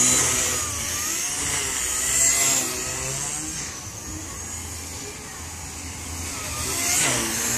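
Blade 130X micro RC helicopter in flight: the high electric motor whine and rotor buzz waver in pitch as the throttle and rotor speed change. It fades in the middle and grows louder again near the end.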